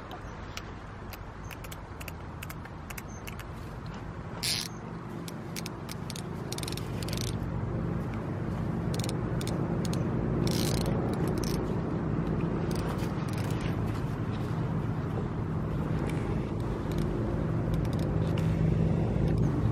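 A small engine running steadily as a low hum, growing louder from about six seconds in, with scattered light clicks and knocks of handling on top.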